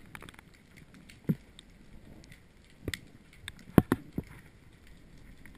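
Muffled underwater noise heard through a GoPro's underwater housing, broken by a few sharp knocks and clicks, the loudest a quick pair a little under four seconds in.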